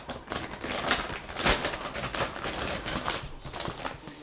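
Packaging being handled: an irregular run of crinkles, rustles and small clicks, with the sharpest crackle about a second and a half in.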